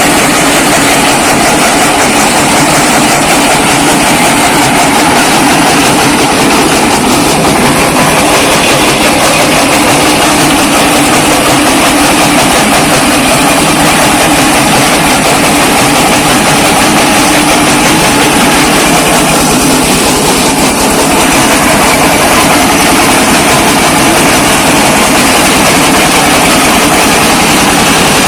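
Mini brick-breaker machine running and crushing bricks: a loud, steady mechanical rattle and grind without a break.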